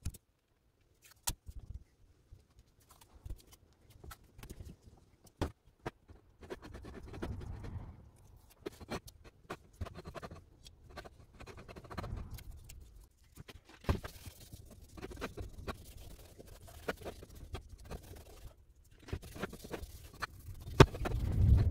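Intermittent scratching and scraping with scattered sharp clicks and knocks, as the parts of an old bench grinder are cleaned down for paint.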